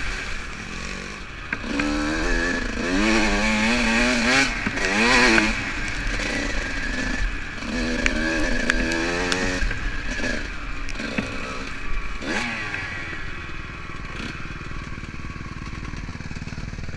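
Dirt bike engine heard from the rider's seat as it rides a wet trail: it revs up and eases off twice in the first half, then runs lower and quieter near the end.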